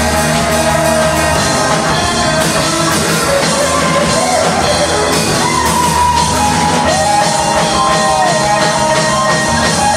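Live rock band playing, with a singer holding long notes.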